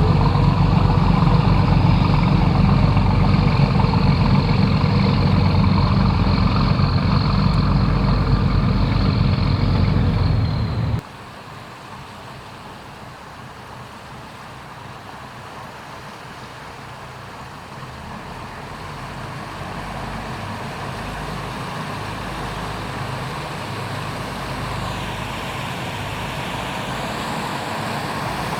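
Patrol boat engines running loud and steady, cut off abruptly about a third of the way in. A much quieter engine drone follows and slowly grows louder as another boat approaches.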